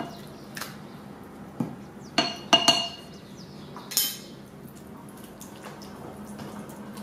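Hands squishing raw chicken pieces through a wet chermoula marinade in a glazed ceramic bowl, with a few sharp, ringing clinks against the bowl a little over two seconds in and another about four seconds in.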